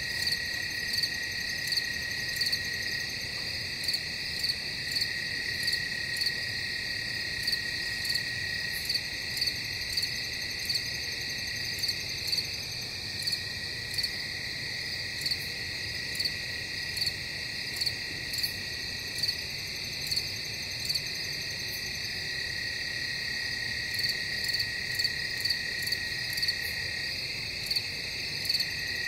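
Night-time insect chorus: crickets trilling steadily, with short sharp chirps recurring about once a second.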